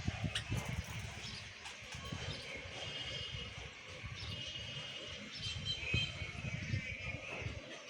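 Pet birds chirping in short repeated calls over a low rumble.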